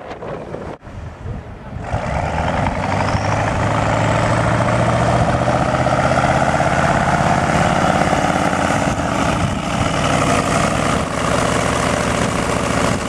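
Heavy all-wheel-drive truck's diesel engine working hard under load as the truck climbs a soft sand dune, getting louder about two seconds in and then holding high revs.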